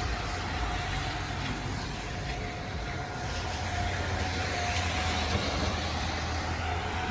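Distant outdoor warning siren sounding a faint steady tone, heard under a steady low rumble and rushing noise from the surroundings.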